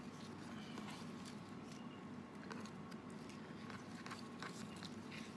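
Faint rustling and crinkling of banana leaf strips being handled and woven by hand, a scatter of small crisp sounds that come more often after the first couple of seconds, over a steady low hum.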